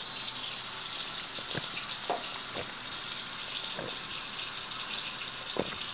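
Gulps of orange juice being swallowed, picked up close on a clip-on chest microphone, about five soft gulps. Under them is a steady sizzling hiss from chicken braising in a pan on the stove.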